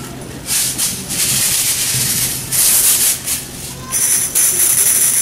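Tambourine shaken in short bursts, then shaken continuously from about four seconds in, its metal jingles ringing steadily.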